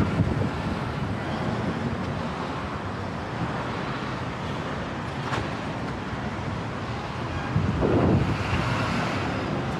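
Road traffic on a busy highway, with wind buffeting the microphone; the rumble swells louder about eight seconds in.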